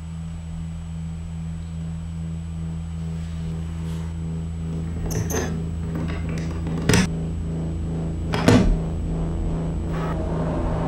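A low steady drone that slowly grows louder, with three sharp clicks of a metal door latch and lock being handled about five, seven and eight and a half seconds in.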